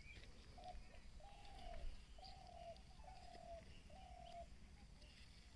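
Faint bird call: a series of five short hoots, each about half a second long, all at much the same mid pitch.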